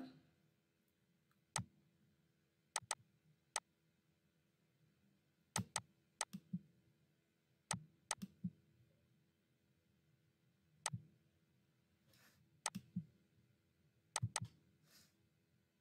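Scattered clicks of a computer mouse and keyboard keys while code is edited, some single and some in quick pairs, with gaps of a second or more between them.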